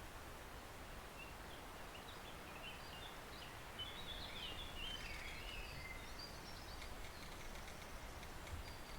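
A forest stream flows with a steady, gentle rush. Over it, a songbird sings a run of quick, varied high notes, busiest in the middle and fading out near the end.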